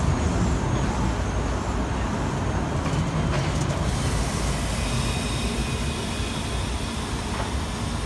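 Luas light-rail tram moving slowly past at close range, with the rumble of its wheels on the rails. A faint high whine joins about five seconds in.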